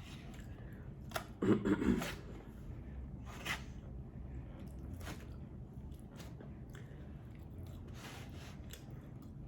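A person chewing food close to the microphone, with scattered small mouth and utensil clicks. There is a brief louder burst of sound about a second and a half in.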